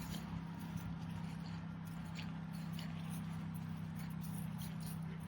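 A steady low mechanical hum with a few faint ticks over it.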